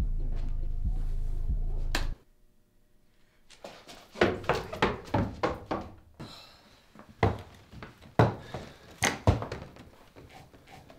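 Bass-heavy music with a steady beat cuts off abruptly about two seconds in. After a short, nearly silent pause, a run of irregular thuds and knocks follows.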